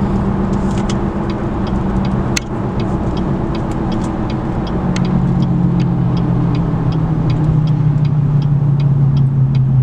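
Car engine running, heard from inside the cabin, its hum dropping to a lower pitch about halfway through, with a steady ticking about three times a second like a turn signal.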